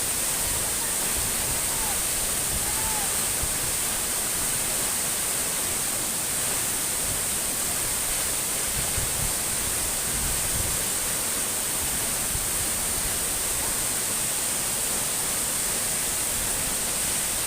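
Waterfall rushing: a steady, unbroken noise of falling water. Two faint short chirps sound in the first three seconds.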